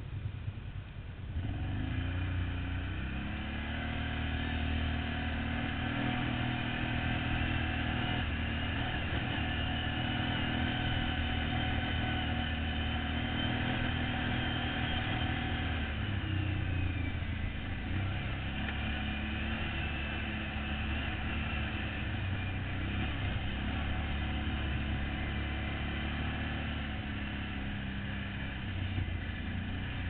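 ATV engine running under throttle on a rough trail. Its pitch climbs in the first few seconds and holds steady, drops about halfway through, then runs steady again.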